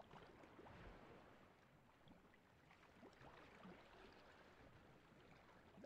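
Near silence: faint room tone, with a few faint soft ticks.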